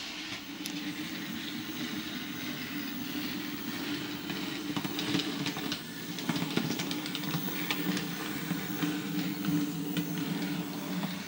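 Model G5 tank locomotive's electric motor whirring steadily as it runs along the track while being run in, with occasional faint clicks from the wheels on the rails.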